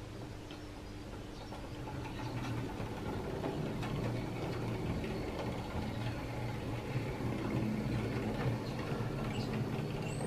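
Hornby Dublo tank engine chassis running slowly along the track under power from its horseshoe-magnet motor: a steady mechanical whirr with a clicking rattle of wheels on rail, growing louder about two seconds in as it runs past.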